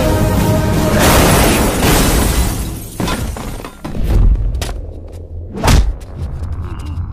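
Action-film fight sound effects over a dramatic background score. About a second in comes a long crashing noise, then several heavy booming hits, the loudest a little before the end.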